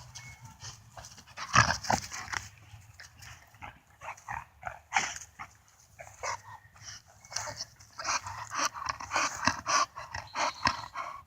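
American bully dogs whining and yipping in short, irregular bursts, which come thicker over the last few seconds.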